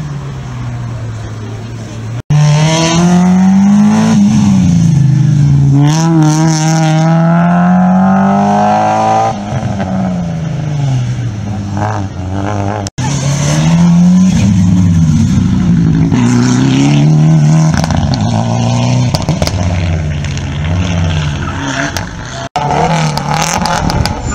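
Rally car engines revving hard as the cars drive a stage, the pitch climbing and dropping back again and again with each gear change and lift. The sound breaks off abruptly between passes where short clips are cut together.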